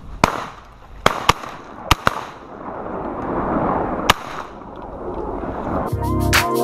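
Shotguns firing in a volley: about six sharp reports in the first four seconds, some in quick pairs. Electronic music with a beat comes in near the end.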